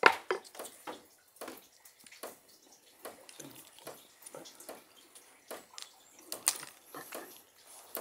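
Cracked walnut shells being handled and picked apart by hand: a sharp crack right at the start, then scattered small clicks and crackles of shell.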